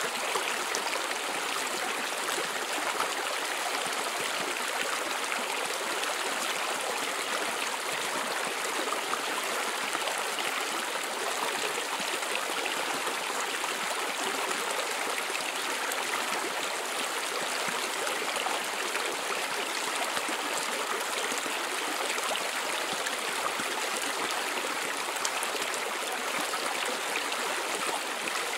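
Steady rush of flowing stream water, an even, unchanging hiss.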